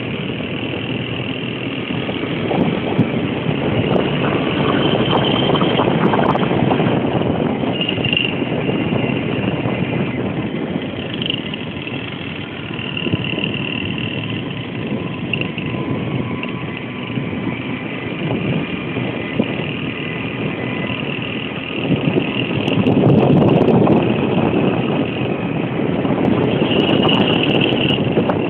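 Small motorbike engines running while riding along, a whining tone that rises and falls with the throttle, growing louder about three quarters of the way through.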